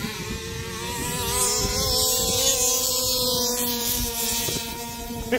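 Two large-scale RC cars' small two-stroke petrol engines, a Zenoah 25.4cc and an O'Neill Brothers Racing 34cc, running at full throttle in a drag race. The high, steady drone rises a little in pitch and loudness to a peak about two to three seconds in, then eases slightly.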